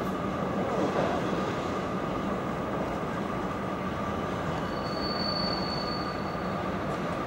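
Class 90 electric locomotive hauling a container freight train round a curve, a steady running noise of the train. A thin, high wheel squeal comes in about halfway through and lasts a second and a half.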